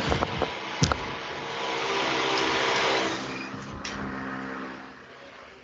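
Loud rushing noise over the lecture audio, with a few sharp clicks in the first second. It swells to a peak about halfway through and then fades away. It is the kind of disturbance a student calls the sound coming through "completely disturbed".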